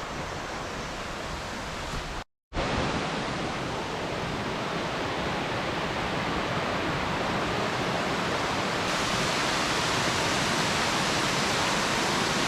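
Steady rushing water of a waterfall in a mountain stream, breaking off for a moment about two seconds in and a little louder after.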